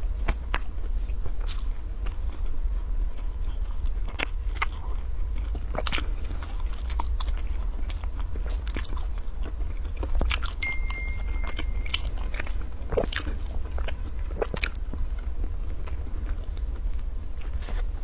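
Close mouth sounds of a person biting and chewing soft, flaky pastry buns: scattered clicks and light crunches at an uneven pace over a steady low hum.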